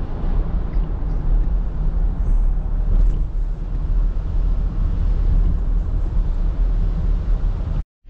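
Steady road and tyre noise heard from inside a car driving on a wet road through a road tunnel, with a deep low rumble. It cuts off suddenly just before the end.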